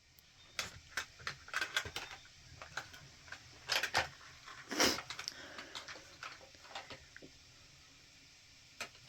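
A string of irregular knocks, clicks and rustles, loudest about five seconds in, dying away after about seven seconds.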